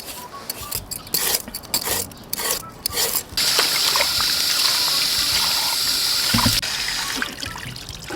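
Water trickling and splashing in uneven spurts, then a steady rush of running water for about three seconds that drops off suddenly.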